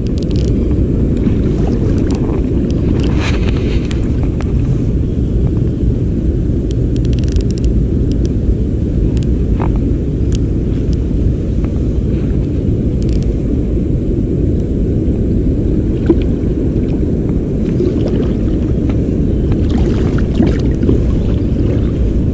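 Steady low rumble of a shallow, rocky stream's flowing water, with a few faint ticks now and then.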